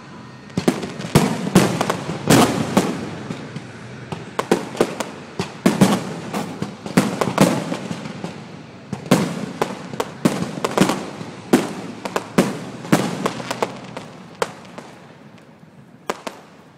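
Fireworks display: a rapid, irregular string of big thuds and sharp bangs, each trailing an echo, thinning out to a few last bangs near the end.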